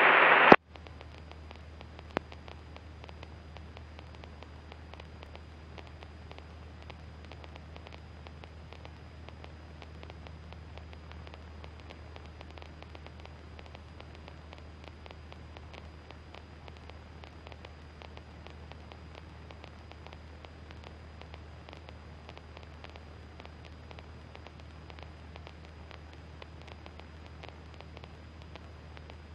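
A light aircraft's intercom audio feed between radio calls: a low steady hum under faint hiss and fine crackling static. A short loud burst of noise comes at the very start, and a single click about two seconds in.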